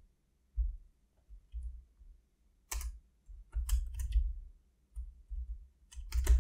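Typing on a computer keyboard: irregular keystroke clicks, a few close together around the middle and again near the end, with dull low thumps between them.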